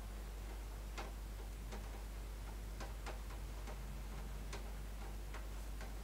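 Scattered light clicks, about eight at irregular intervals, from fingers tapping and handling a Xiaomi Redmi Note 2 Prime smartphone, over a steady low hum.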